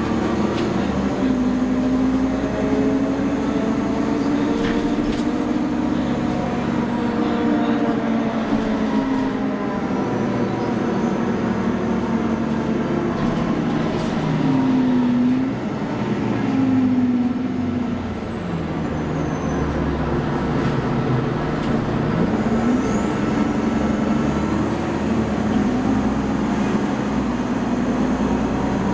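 Cummins ISL9 diesel engine and ZF six-speed automatic transmission of a 2011 Nova Bus LFS, heard from inside the passenger cabin while the bus is under way. The engine note rises and falls several times as the bus accelerates, shifts and slows, with a faint high whine gliding in pitch.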